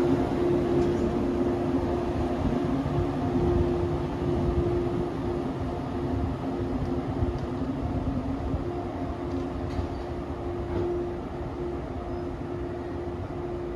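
Shinano Railway 115 series electric train pulling away along the platform, its running rumble fading as it goes, with a steady low hum underneath.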